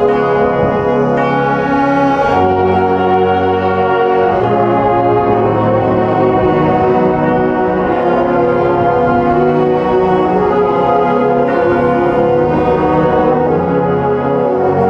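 Community concert band playing, brass to the fore, in sustained chords that change every second or two.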